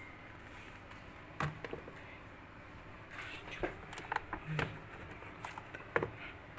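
Scattered clicks and taps on a laptop, one after about a second and a half, a quick run of several around the middle, and a sharp one near the end, over faint room hiss.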